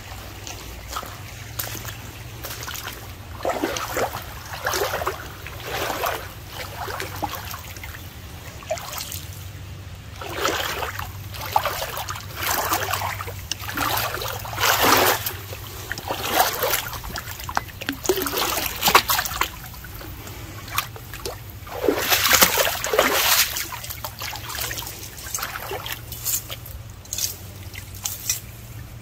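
Shallow creek water splashing and sloshing in irregular bursts about once a second, as from steps wading through it, with quieter pauses now and then.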